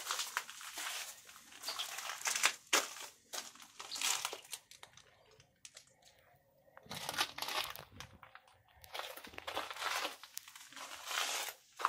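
Footsteps scuffing and crunching on gritty sand and rock, in uneven bursts, with a quieter pause from about five to seven seconds in.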